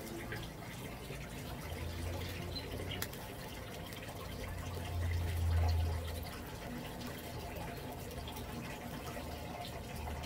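Backyard waterfall water feature running, a steady trickle and splash of falling water, with a low rumble that swells about five seconds in.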